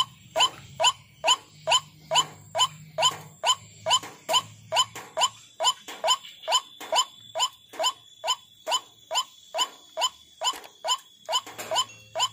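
White-breasted waterhen (ruak-ruak) calling: a monotonous run of short, rising notes, a little over two a second, kept up without a break.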